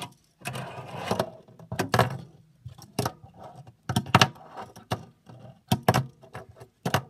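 Tech Deck fingerboard clacking and rolling on a plastic ramp and wooden tabletop: a rolling scrape about half a second in, then a string of sharp clacks, some in quick pairs, as the board lands and is tapped down.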